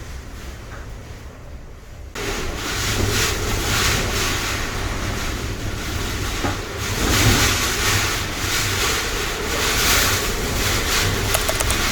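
Typhoon wind gusting and buffeting the microphone, over the rush of surf. The noise jumps up suddenly about two seconds in, then swells and eases with the gusts.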